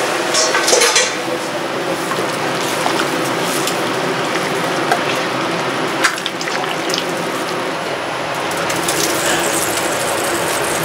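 A big aluminium pot of broth with carrots and onions at a rolling boil on the stove, a steady bubbling hiss, with metal clinks and knocks from a ladle against the pot near the start and about six seconds in. Near the end, chunks of parboiled boar meat are tipped in from a metal bowl.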